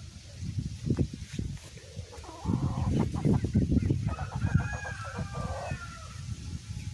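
Chickens clucking and calling, with a drawn-out call from about two and a half seconds in until near the end, over a low rumble.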